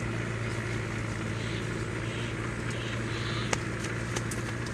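A steady low hum, with footsteps on a dry dirt path: a few sharp crunching steps begin about three and a half seconds in.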